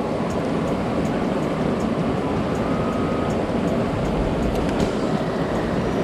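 Mountain stream water rushing over rocks, a steady wash of noise with a strong low end.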